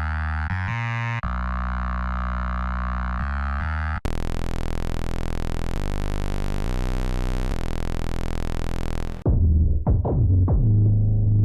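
Trap bass presets from Arturia's Trap Drop pack played on the Analog Lab software synthesizer. First come sustained low synth bass notes that change pitch; about four seconds in a brighter, buzzy sustained sound takes over; near the end comes a quick run of short, punchy kick-bass hits.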